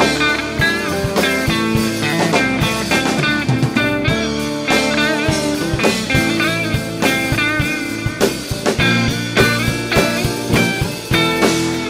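Music: the home-built Stringthrasher No. 11 seven-string electric guitar playing a bluesy rock line over drums, with bent notes.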